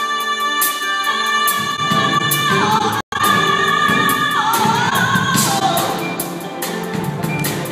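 A female vocalist singing live with a band, holding a long high note and then sliding down in vocal runs over the accompaniment. The sound cuts out for an instant about three seconds in.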